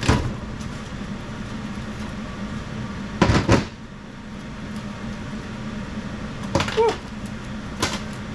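Metal clanks and knocks from tools and parts being handled while working on a cylinder head: one at the start, a pair about three seconds in, and more near the end, over a steady low hum.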